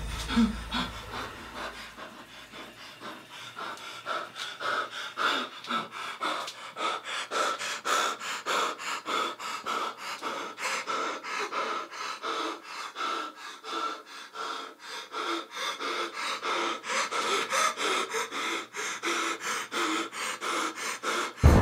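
A man panting hard through an open mouth: quick, rhythmic breaths, about two to three a second.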